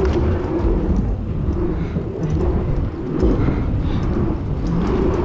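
Mountain bike tyres rolling fast over a pump track, a loud steady low rumble that swells and eases as the bike pumps through the berms.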